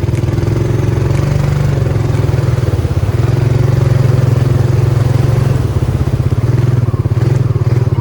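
ATV engine running steadily under throttle on an off-road ride, its note easing off and picking up a little.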